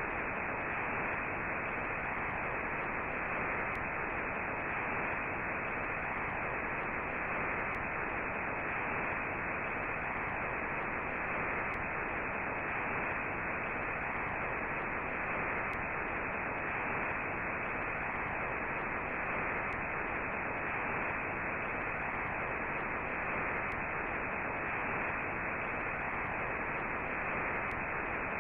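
Steady, even radio-style static hiss, muffled with no treble, like a dead broadcast channel.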